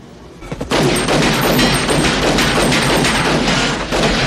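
Rapid automatic gunfire starting about a second in and keeping up as a dense, continuous volley, with bullets striking corrugated sheet metal.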